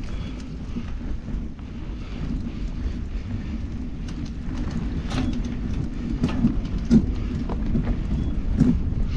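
Mountain bike rolling slowly over a dirt singletrack, picked up through a handlebar-mounted camera: a steady low rumble, with several sharp knocks and rattles from the bike over bumps in the second half.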